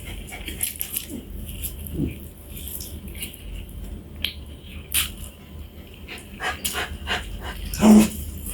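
Scattered light clicks and knocks, then one short, loud animal call near the end.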